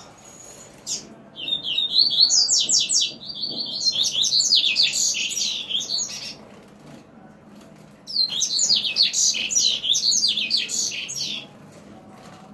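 Male double-collared seedeater (coleiro) singing its courtship song to a female, in two long bursts of rapid, high twittering notes with a pause between them.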